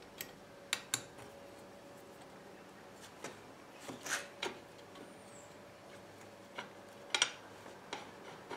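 A few light metal clicks and taps, scattered and irregular, as a steel shaft is worked through steel bearing blocks on a steel plate, over a faint steady hum.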